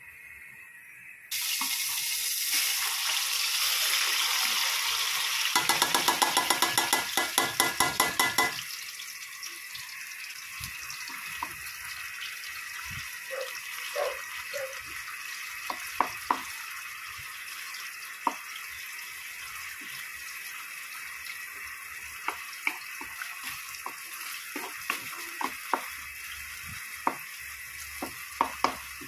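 Sardines in tomato sauce frying in hot oil in an aluminium wok. A loud sizzle starts suddenly about a second in, with a rapid clatter of the wooden spoon near its end, then settles after about eight seconds into a quieter steady sizzle. Through the rest, the stirring spoon knocks now and then against the wok.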